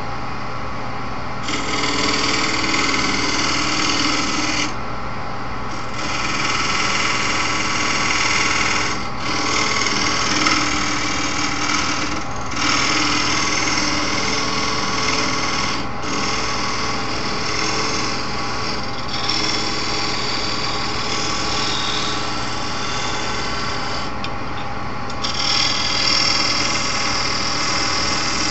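Wood lathe running with its motor humming steadily while a tool works the edge of the spinning wooden blank. The scraping comes in passes several seconds long, with brief pauses where only the motor hum is left.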